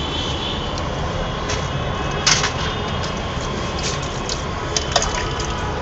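Steady hiss of water spraying onto a window air conditioner as it is washed down, over a low rumble, with a few faint clicks.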